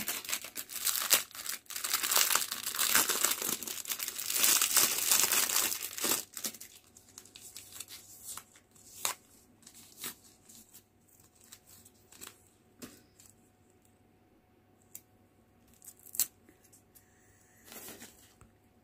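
Plastic packaging bags and paper packets crinkling and rustling as they are handled. The crinkling is dense for about the first six seconds, then thins to scattered light crinkles and taps.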